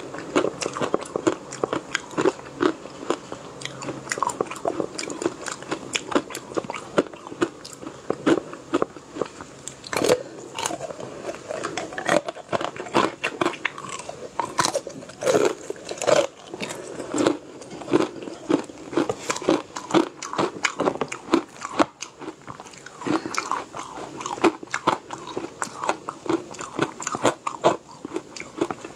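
Close-miked crunching and chewing of small round yellow balls of food: many sharp, irregular crunches from bites, one after another.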